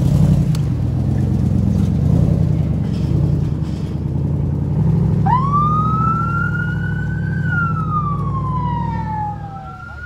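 Hummer H2's V8 engine running with a deep exhaust note as it drives off slowly. About five seconds in, a car-mounted electronic siren starts a wail: a quick rise, a slow climb, then a long fall, with a second rise beginning near the end as the engine sound fades.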